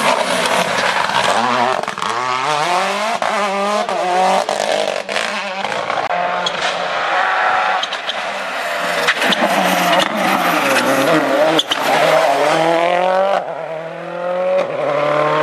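Rally car engine at full throttle, its pitch climbing through gear after gear with brief drops at each shift, as the car passes. Sharp cracks are scattered through it, and the engine lifts off about 13 seconds in before pulling hard again.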